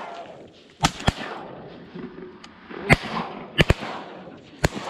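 A volley of about six shotgun shots from several guns, uneven in spacing, some in quick pairs, each with a brief echo.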